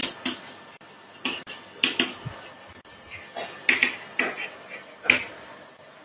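Chalk writing on a blackboard: an irregular string of sharp taps and short scratchy strokes as letters are written. The loudest taps fall about two, four and five seconds in.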